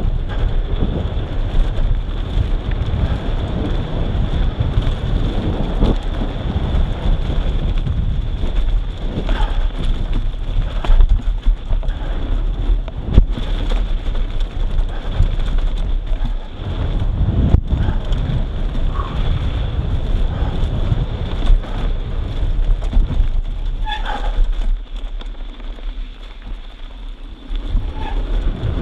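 Wind buffeting the microphone over the rumble of a downhill mountain bike's tyres on a dirt trail at speed, with a few sharp knocks. The rumble eases off for a couple of seconds near the end.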